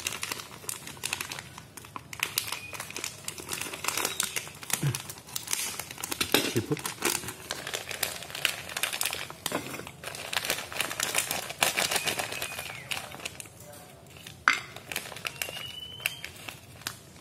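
Thin plastic snack bag crinkling and crackling as it is cut open and handled, thinning out near the end, followed by a single sharp click.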